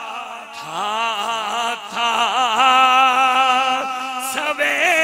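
A preacher's male voice chanting verse in a drawn-out, wavering melody, amplified through a microphone, with a short break for breath near the start.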